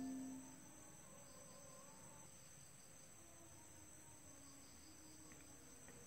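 Faint steady high-pitched trilling of crickets, with the tail of background music fading out in the first moment.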